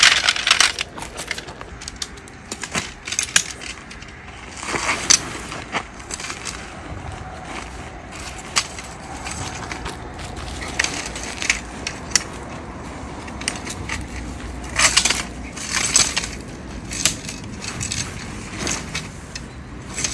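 Metal tent poles for a Kovea Nest W tent clinking and rattling as they are sorted, snapped together and fed through the tent fabric, giving irregular sharp clicks, with scattered clusters of louder clatter.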